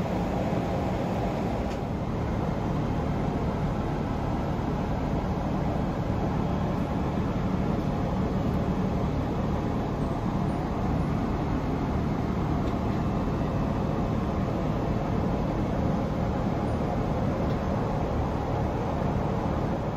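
Steady in-flight cabin noise of a Boeing 777-300ER, an even low rumble of engines and airflow that does not change.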